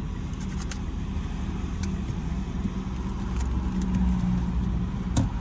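Car running, heard from inside the cabin: a steady low engine and road rumble with a faint tone that wavers, a few light clicks, and one sharper click about five seconds in.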